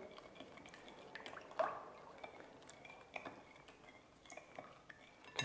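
Milk, oil and egg mixture being stirred by hand in a glass bowl: faint swishing of the liquid with a few light clicks of the utensil against the glass.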